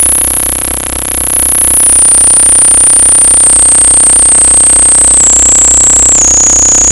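Loud harsh noise music: a piercing high whistle that slides and steps down in pitch, over a dense droning hum and a fast low pulsing throb.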